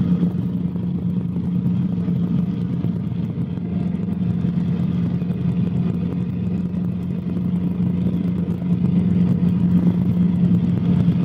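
Cabri G2 helicopter's Lycoming four-cylinder piston engine and rotors running, a steady low drone heard inside the cabin.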